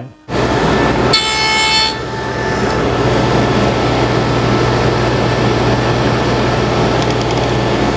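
Table saw running with a steady hum while a box-joint finger is cut in a wooden hinge blank: a brief high whine about a second in as the blade passes through the wood, then the blade spins free between cuts.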